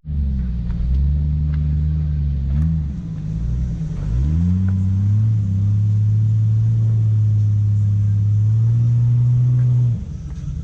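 Jeep engine working on a rocky off-road trail: a low hum whose pitch dips and then climbs about four seconds in as it revs up, holding a steady higher pitch before cutting off abruptly near the end.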